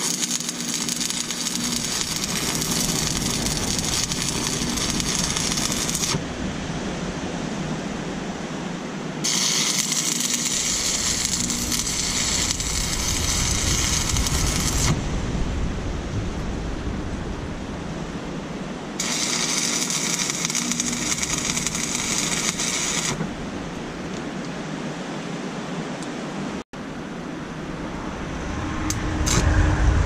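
Stick welding arc crackling and hissing as 6013 rods on a buzz-box welder tack steel plates together, in three runs of several seconds each with pauses between. A few light clinks near the end.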